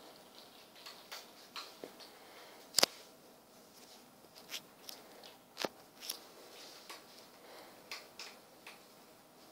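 Cats wrestling on a laminate floor: scattered light clicks and taps of claws and paws, with two sharper knocks, one near three seconds in and one past halfway.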